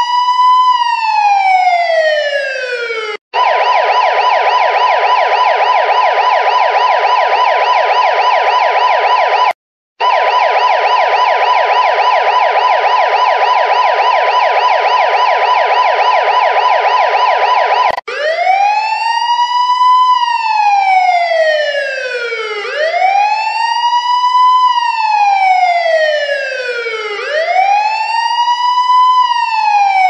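Telangana Police siren sounding a wail, each cycle rising quickly and falling slowly over about four seconds. About three seconds in it switches to a rapid yelp, broken briefly near the ten-second mark, and about eighteen seconds in it returns to the slow wail.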